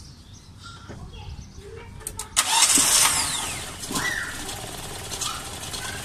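Carburetted engine of a 1999 Mitsubishi Colt cranking and firing about two seconds in, loudest as it catches, then settling into a steady run. It is the first start after the engine had long refused to start.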